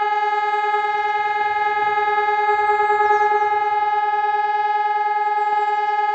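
Hörmann ECN 2400 electronic civil-defense siren sounding a loud, steady tone that holds one pitch without rising or falling, the form of Germany's continuous all-clear (Entwarnung) signal.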